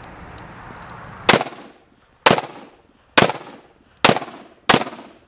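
A pistol fired five times in a string, about a second apart and quickening toward the end, each shot ringing out briefly.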